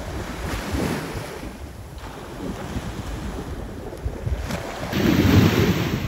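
Small sea waves breaking and washing up a sandy beach, with wind buffeting the microphone; the wash swells about a second in and is loudest near the end.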